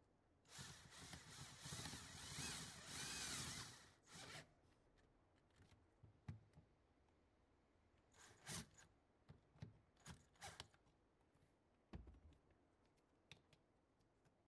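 Cordless drill with a 5/16-inch bit drilling into the rusty steel pan of a vintage Schwinn banana seat, drilling out a fastener where the sissy bar attaches. It runs steadily for about three and a half seconds, then gives one short burst. Later come a few brief bursts and light clicks.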